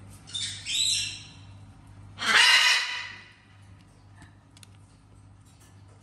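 Parrot squawking twice: a shorter call about half a second in, then a louder, harsher squawk about two seconds in.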